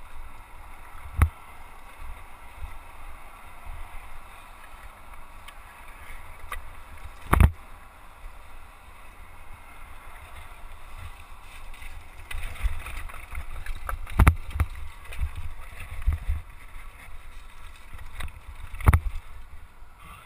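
Downhill mountain bike rattling and clattering over loose rocks on a steep technical trail, with a steady low rumble of the bike shaking. Four sharp knocks stand out, the first about a second in and the last near the end, as the bike hits rocks.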